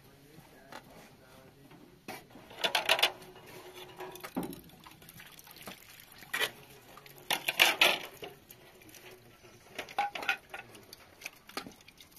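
Tomatoes being handled in a steel cooking pot: scattered clinks and knocks against the pot in a few short clusters.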